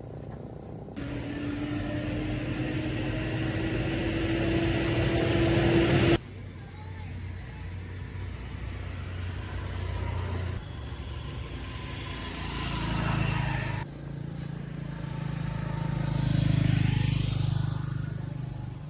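Motor vehicle engine running on the move across several edited clips. In the first clip its pitch rises steadily as it speeds up; later clips carry a lower steady hum.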